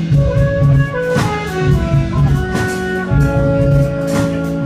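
Jazz fusion band playing live: guitar and keyboards holding and shifting chords over a drum kit, with sharp drum and cymbal accents about a second in and again near the end.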